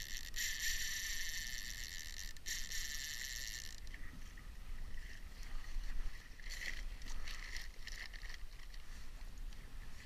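Conventional fishing reel whirring steadily for about the first four seconds as a hooked halibut is fought, then stopping; after that come short, scattered rasps of the reel over low wind and water rumble.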